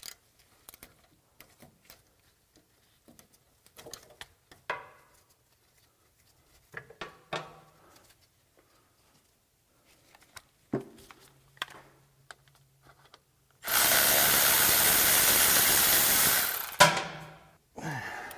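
Scattered clinks and knocks of wrenches and metal parts, then a power tool runs steadily for about three seconds, spinning out a hub bearing mounting bolt, and cuts off, followed by a sharp metallic knock.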